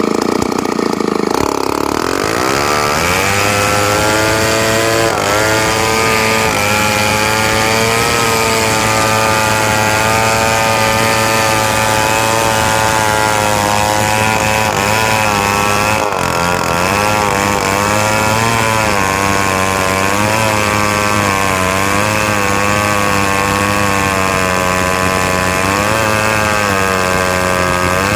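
Two-stroke chainsaw running hard and steadily, cutting timber, its pitch wavering slightly under the load of the cut. The pitch drops and settles about two seconds in.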